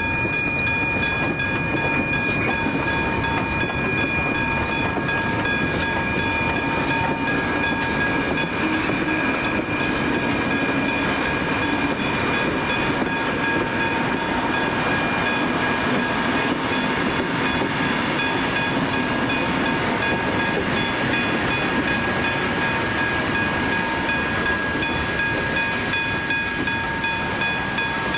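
Level crossing warning bells ringing continuously as a heritage train of wooden passenger carriages rolls across the crossing, with the rumble and clatter of its wheels on the rails.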